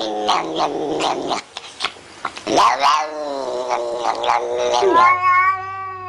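Cat yowling: long, drawn-out wails that swoop up and down in pitch, with a short lull about a second and a half in.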